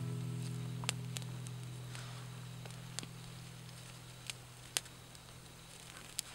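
Small campfire of sticks crackling, with sharp single pops about a second apart. The low lingering tone of acoustic guitar music fades out under it.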